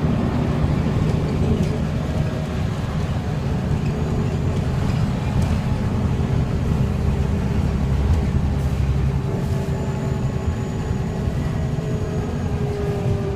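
Scania N94UB bus's rear-mounted five-cylinder diesel engine and driveline running as the bus drives along, heard from inside the passenger saloon. A steady low rumble, with the engine note shifting slightly as the load changes.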